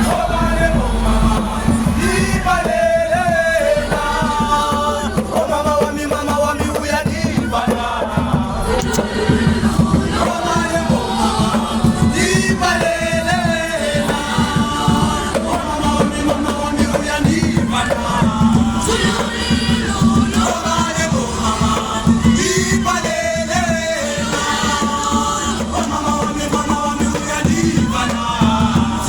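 A group of children singing together, a repeated melodic phrase sung over and over with a steady rhythmic backing.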